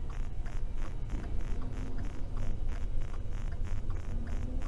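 Low rumble of a stopped patrol car, with a fast, even pulsing hiss of about five pulses a second over it.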